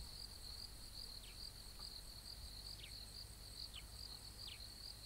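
Faint insect chirring, typical of crickets: a steady high-pitched trill that pulses about three times a second, with a few short falling whistles about a second apart.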